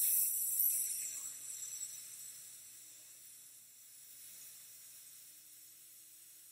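A woman sustaining a voiceless 's' as long as she can, a steady hiss of breath through the teeth: the 's' half of an S-Z ratio maximum phonation time test. It is strongest at first and fades over the first few seconds to a faint hiss.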